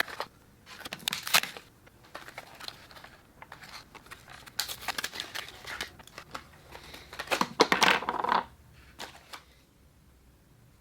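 Close handling noises: irregular rustling, crinkling and light clicks in several short clusters, dying away near the end.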